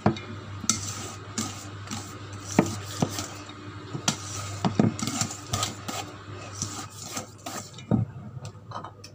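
A utensil stirring and beating a thick dough by hand in a stainless steel mixing bowl, with irregular metallic knocks and scrapes against the bowl's sides as an egg is worked into the dough.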